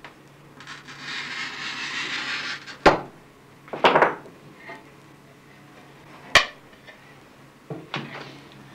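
Stained-glass bench work: a scratchy hiss lasting about two seconds, then a few sharp clinking knocks of hand tools on glass and lead, the loudest about three, four and six seconds in.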